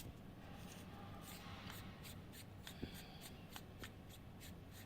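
Faint light ticks and rubbing of small metal parts being handled as the protective cap is unscrewed from an airgun pressure regulator by hand, over a low steady hum.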